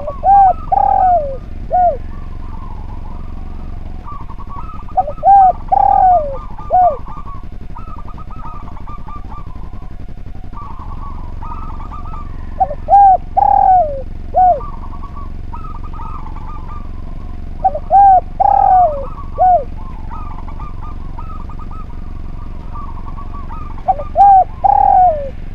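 A spotted dove (derkuku/tekukur) cooing: five phrases of three or four coos each, repeated about every five to six seconds.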